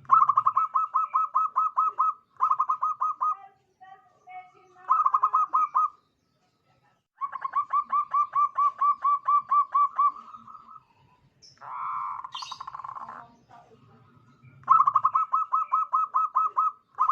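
Zebra dove (perkutut) singing: bursts of rapid staccato cooing notes, about six a second, the longest run lasting over three seconds. A harsher, noisier call breaks in about twelve seconds in.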